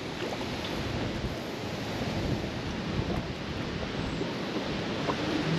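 Strong wind buffeting the microphone, over choppy water lapping.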